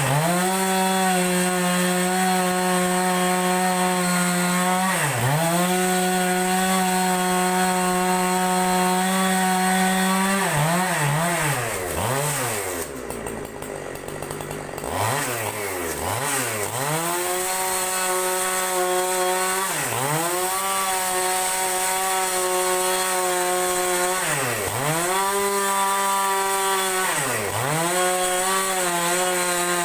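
Two-stroke chainsaw ripping a large log lengthwise, running at high revs with its pitch dipping again and again as it bogs in the cut or the throttle is eased. Around the middle it falls nearly to idle for a couple of seconds, then revs back up and carries on.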